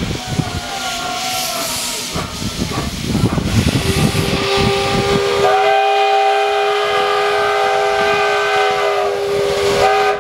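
Steam locomotive arriving with its steam hissing and puffing. About four seconds in, its whistle sounds a long chord of several notes at once, stepping up in pitch about a second later.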